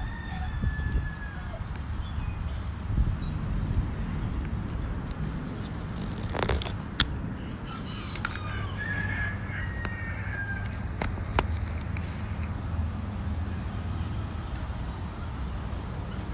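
Outdoor ambience: a steady low rumble with birds calling a few times, in short gliding calls near the start and again around nine to ten seconds in. Two sharp knocks come about six and a half and seven seconds in, as the camera is handled on its tripod.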